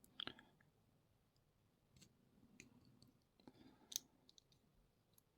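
Faint, scattered small metallic clicks and taps: a padlock core being worked out of the lock body with its key and a shim. A cluster of clicks comes just after the start, with single ticks and another small cluster around the middle.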